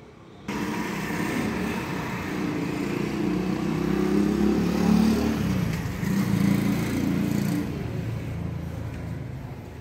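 A motorcycle engine passing by on the road, growing louder to a peak about halfway through and then fading away.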